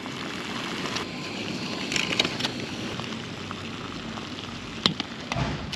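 Jetboil camping stove burner running with a steady hiss, with a few sharp clinks as eggs are dropped into its cooking cup, about two seconds in and again near the end.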